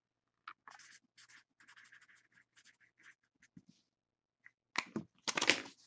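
Felt-tip permanent marker scratching across a slip of paper in short strokes as a name is written. Near the end come a few louder knocks and rustles of handling.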